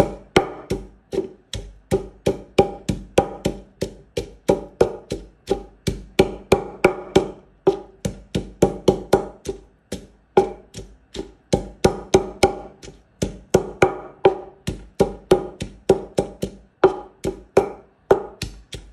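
A stone pestle pounding chillies and garlic in a mortar, crushing them into a paste: steady knocks at about three a second, each with a short ringing tone, broken by brief pauses now and then.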